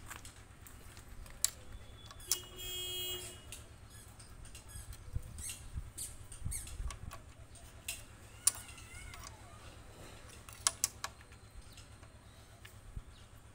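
Scattered sharp clicks and taps from work on concrete pillar formwork, with a squeal lasting about a second near the start.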